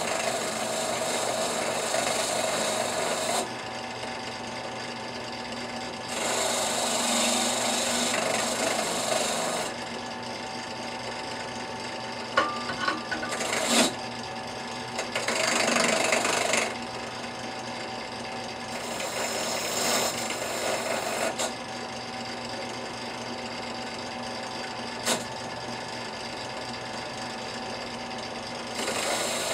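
Wire wheel spinning in a benchtop drill press, scrubbing the scale off a hardened, hand-forged steel hatchet head held in pliers. The rasping swells in several passes as the head is pressed to the wheel and drops back to the steady motor hum when it is lifted away, with a few short knocks.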